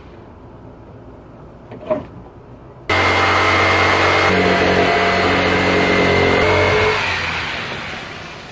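Handheld corded power saw cutting through hardboard sheathing: it starts abruptly about three seconds in, runs steadily with a constant hum, then winds down near the end. There is a single short click a second before it starts.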